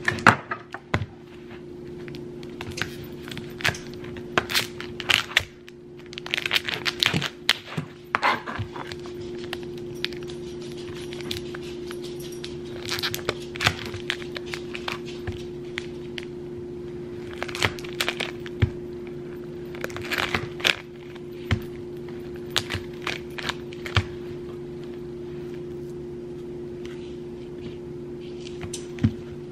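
Plastic wrapper of a Pillsbury refrigerated cookie dough roll crinkling and tearing as it is slit with a knife and peeled off, with sharp clicks of the knife and dough on a plastic cutting board. A steady low hum runs underneath.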